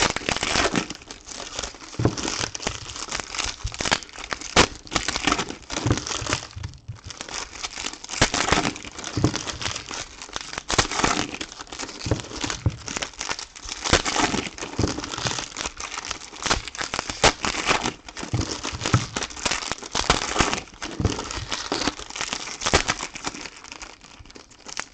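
Plastic trading-card pack wrappers crinkling and tearing as packs are handled and opened, in irregular rustling bursts.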